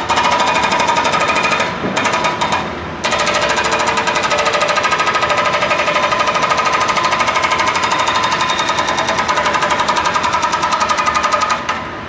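Hydraulic breaker on a Caterpillar 420E backhoe loader hammering into street pavement in rapid, even blows, with two short breaks between about one and a half and three seconds in. It stops just before the end, leaving a lower steady engine sound.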